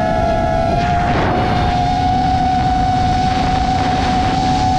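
The brushless motors and propellers of a 5-inch FPV quadcopter whining at a steady pitch, heard through the GoPro mounted on the drone, over a rough rush of noise. The pitch steps up slightly about a second in, then holds.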